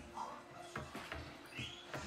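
Wooden spoon stirring horchata in a tall glass pitcher, knocking and scraping against the glass a few times as it works sugar up from the bottom.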